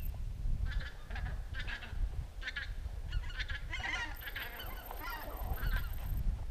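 A flock of geese honking in flight overhead, many short calls overlapping and densest in the middle.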